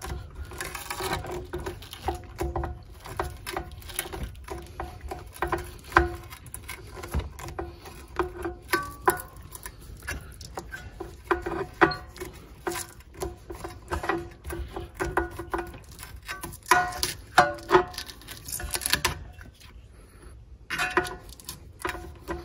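Old Velcro disc on a floor-sanding edger pad being torn away by twisting it round long-nose pliers: irregular crackles, clicks and short tearing sounds in quick succession, with a brief lull near the end.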